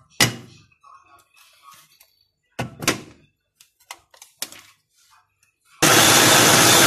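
Knocks and clatters as the bowl and motor head of a Moulinex electric mini chopper are handled and fitted together. About six seconds in, the chopper's motor starts abruptly and runs loud and steady, chopping peppers and garlic.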